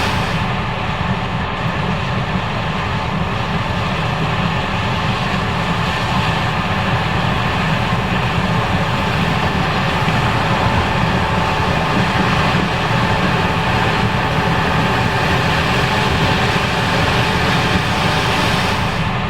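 Case IH 5140 Axial-Flow combine running steadily while harvesting corn: engine and threshing machinery giving a continuous hum with a steady whine over it.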